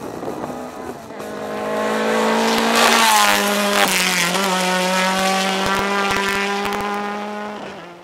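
Rally car passing at speed on a gravel stage. The engine note rises as it approaches, drops in pitch as it goes by about three seconds in, then holds steady as it pulls away, with a hiss of tyres on gravel around the pass. The sound cuts off abruptly near the end.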